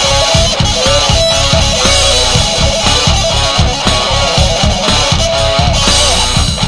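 Instrumental break of a heavy rock song: a lead guitar plays bending, gliding notes over rhythm guitar and a steady kick drum striking about four times a second.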